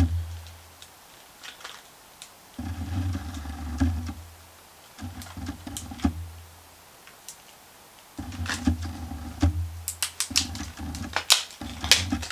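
Small sharp clicks and taps of hands working on an open laptop's memory slot, thickest near the end. A low hum comes and goes underneath in stretches of one to two seconds.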